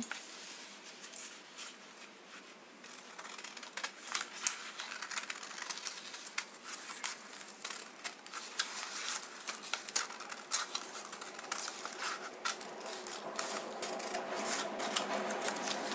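Scissors cutting through a sheet of paper: a run of short snips and blade clicks, sparse at first and coming thick and fast from about four seconds in.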